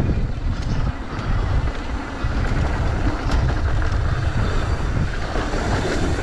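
Mountain bike descending a dirt trail at speed: wind buffeting the microphone over the steady rolling of knobby tyres on dirt, with scattered clicks and rattles from the bike.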